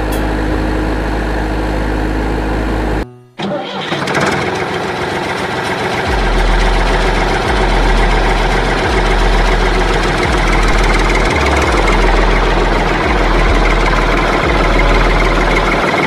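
Tractor engine sound running steadily. It breaks off about three seconds in, then resumes with a low thud about every second and a half.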